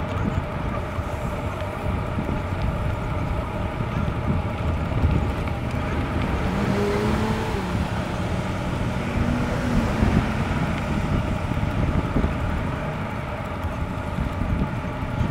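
Road traffic noise with wind rumbling on the microphone; a passing vehicle's engine note rises and falls in the middle.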